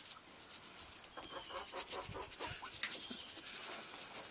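Toothbrush bristles scrubbing the wet, scaly leg and foot of a Black Copper Marans rooster, a fast run of short scratchy strokes.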